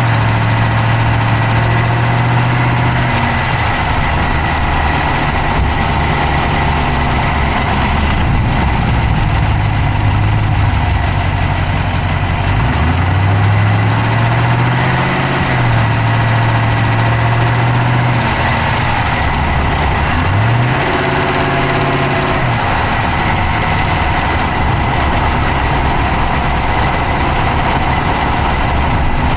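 Dodge Charger's Hemi V8 idling, heard from inside the engine bay, with a fast clicking from the engine. The engine speed dips and climbs back a few times, over a steady high whine.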